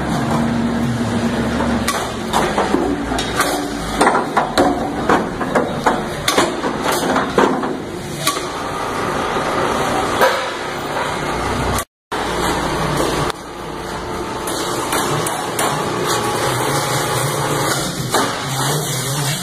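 Hammering in a workshop: a run of sharp knocks, irregular and several a second at their densest, over steady background noise. The sound cuts out for a moment about two-thirds of the way through.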